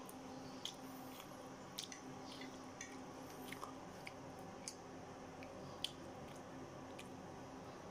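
Someone chewing crispy fried chicken skin, with short crunches about once a second over a steady low hum.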